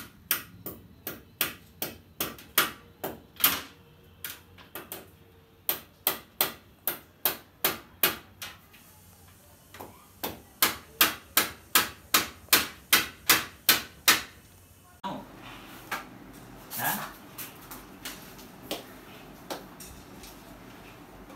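Hammer strikes, sharp and regular at about two to three a second, in runs broken by a short pause, while an air conditioner's metal indoor-unit mounting plate is being fixed to the wall. The strikes stop about two-thirds of the way through, leaving only a few scattered knocks.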